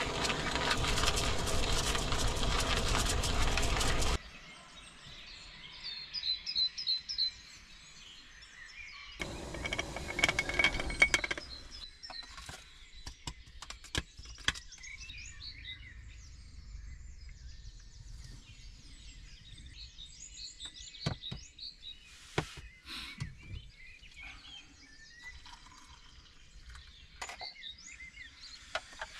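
Hand coffee grinder crunching beans, stopping abruptly about four seconds in; a second, shorter burst of grinding comes about ten seconds in. Between and after, small birds chirp outside and light clicks and taps come from the coffee gear being handled.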